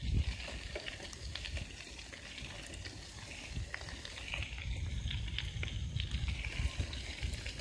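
Bicycle rolling along a gravel trail: the tyres crackle and tick on the gravel, and wind rumbles unevenly on the handheld phone's microphone, swelling toward the end.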